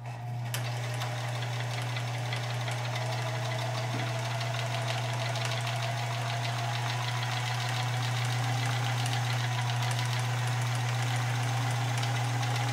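Vintage Union Special 39200 AE industrial overlock sewing machine starting up and stitching fabric: a steady motor hum under a fast, even ticking of the stitching mechanism.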